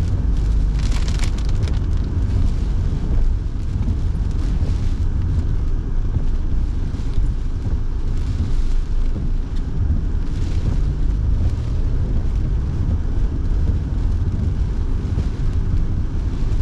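Inside a moving car on a wet road: a steady low rumble of road and engine noise with the heater fan running, and a few brief hissing swishes.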